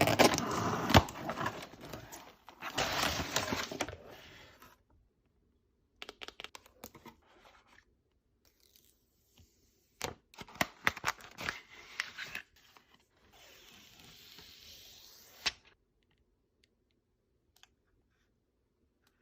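Packaging being torn open and handled: two long tearing rips in the first four seconds, then scattered clicks, more tearing and crinkling about ten seconds in, and a softer rustle that ends in a sharp click.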